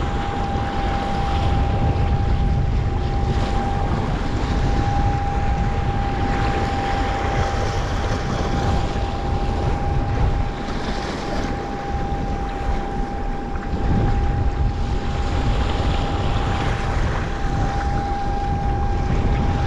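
Rushing surf and wind buffeting the microphone as a kayak is carried in through breaking waves toward shore. A thin, steady high tone runs under the noise.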